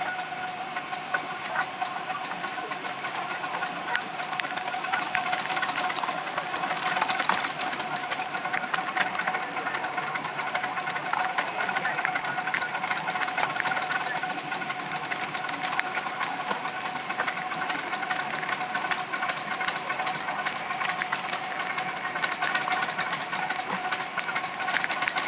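A 7¼-inch gauge miniature steam locomotive on the move: steam hissing, with a rapid stream of clicks and a steady ringing tone throughout.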